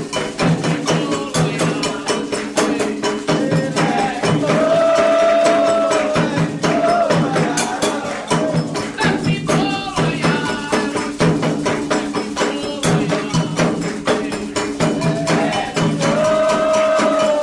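Candomblé ritual music: fast, continuous drumming on atabaque hand drums with a bell and rattle pattern, under chanted singing that holds a long note twice.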